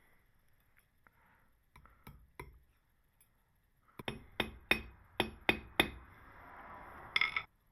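Small metalworking hammer tapping on metal, a few scattered light taps and then a quick run of about seven clinking strikes, with a short metallic ring near the end.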